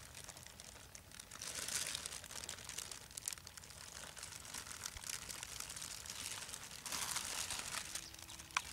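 Large plastic bag crinkling and rustling as it is held open and tipped, with water and small fish spilling from it into a reservoir. It gets louder twice, about a second and a half in and again near the end.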